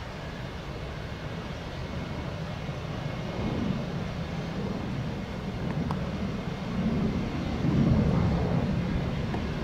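Jet airliner engines rumbling, growing gradually louder.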